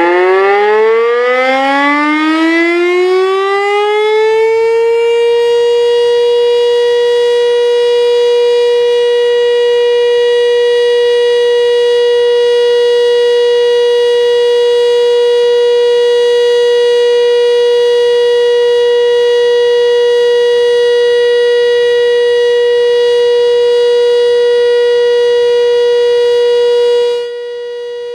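Pole-mounted electromechanical fire-station siren winding up, its pitch rising over about five seconds, then holding one loud steady tone. It is sounding the alarm that calls out the volunteer firefighters. Near the end it drops suddenly to a lower level while the tone goes on.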